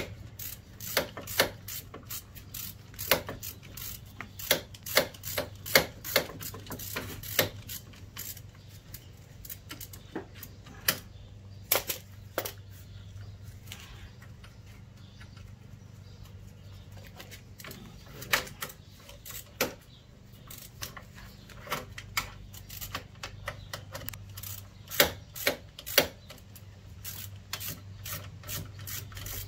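Hand ratchet clicking in irregular runs of sharp clicks as threadlocked brake-assembly bolts are run in, with a sparser stretch in the middle. A steady low hum runs underneath.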